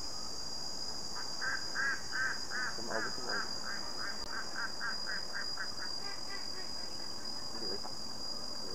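Steady high-pitched drone of insects, with a series of short repeated animal calls starting about a second in, coming quicker and quicker and fading out around six seconds in.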